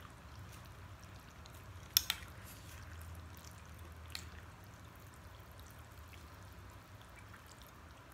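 Metal fork and spoon clinking against a glass bowl of instant noodles: two sharp clinks close together about two seconds in and a lighter one about four seconds in, between faint wet eating sounds of noodles being slurped and chewed.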